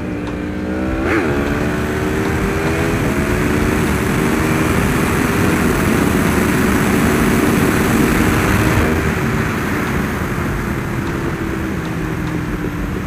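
Yamaha R1's inline-four engine revving hard through a wheelie, its pitch climbing sharply about a second in and then held high and steady. Heavy wind rush builds over the engine in the middle, and the engine note eases down slowly over the last few seconds.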